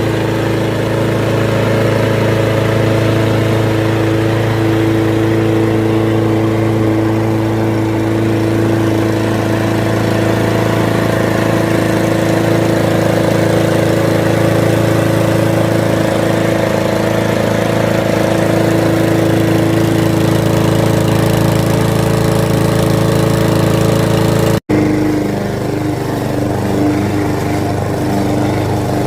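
Victa rotary lawn mower's V40 engine running steadily at a constant speed. About three-quarters of the way through, the sound cuts out for an instant and picks up again slightly quieter.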